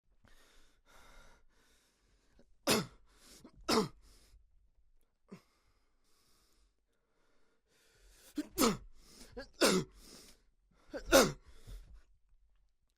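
A man's short pained grunts and sharp exhalations, the sounds of someone taking or dodging blows in a fight. There are soft breaths at first, then about five loud grunts that fall in pitch, two near the start and three close together near the end.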